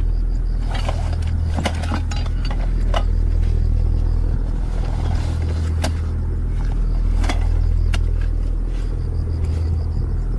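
A steady low rumble with sharp clicks and knocks at scattered moments, about six in all.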